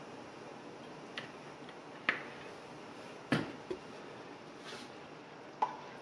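Kitchen handling noises: a few short, sharp clicks and knocks as a cream bottle is set aside and a spoon is picked up to stir a steel soup pot, the loudest about three seconds in, over a faint steady hiss.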